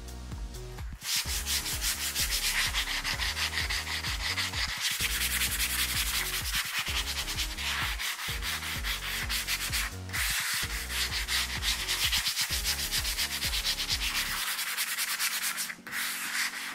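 Hand sanding with a fine-grit abrasive sponge, rubbed quickly back and forth over dried primer on an oak cabinet door. It is de-nibbing, smoothing the rough primer before painting. The rubbing starts about a second in and pauses briefly a few times.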